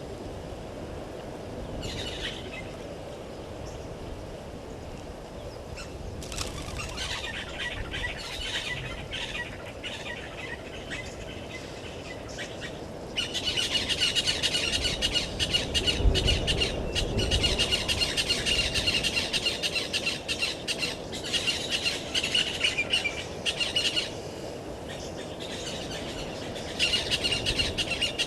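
Wild birds chattering in fast runs of high calls, louder from about halfway through, over a low steady rumble.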